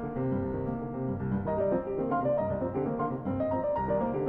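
Classical piano music, a flowing line of notes over held lower notes.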